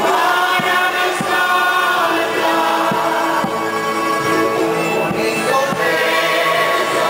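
Canarian parranda folk group singing in chorus, with guitars and double bass and a large traditional drum struck with a felt mallet, its low beats sounding every half second or so.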